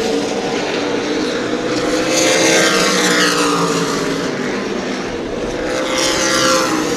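Super late model stock cars' V8 engines running at racing speed on a short oval. Cars pass about two and six seconds in, each pass falling in pitch as it goes by.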